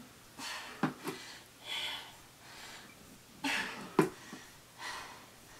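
Hard, rhythmic breathing of a person exercising, a forceful breath about every one and a half seconds, with a few sharp knocks of a sneaker landing, the loudest about four seconds in.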